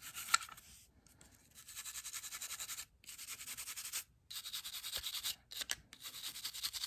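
A cleaning brush scrubbing carbon and unburnt powder off a Glock pistol's lower frame in four runs of quick back-and-forth strokes, with short pauses between them. A light click comes near the start.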